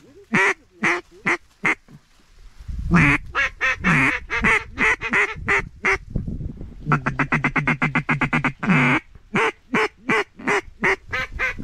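Mallard duck call blown in runs of loud quacks, with a fast, even chuckle of about ten notes a second in the middle. Low wind rumble on the microphone underneath.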